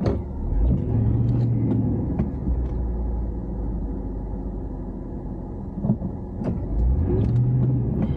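Pickup truck with a snowplow running, heard inside the cab while plowing: a steady low drone with a few knocks. Twice, about a second in and again near the end, a short steady hum rises for about a second.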